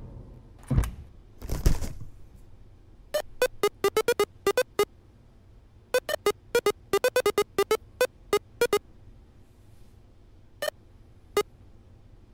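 A cartoon bunny's voice made of short, high, squeaky chirps in quick runs, standing in for speech. Two loud thuds come before it, about a second in and again just under two seconds in.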